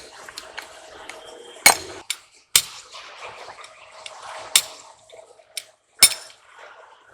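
Metal clanking and clinking: four sharp, loud strikes about a second or two apart, with fainter knocks between them, over a faint steady hum.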